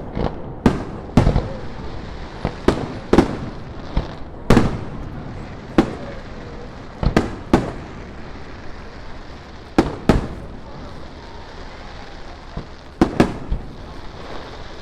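Fireworks display: aerial shells bursting in an irregular run of sharp bangs, some in quick pairs, each trailing off in an echo, with a short lull before a couple more bursts near the end.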